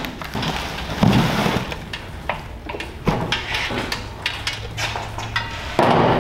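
Cardboard box flaps and plastic packaging crinkling and rustling while a small engine is lifted out of its box, with irregular crackles and a few sharp knocks, heaviest about one, three and six seconds in.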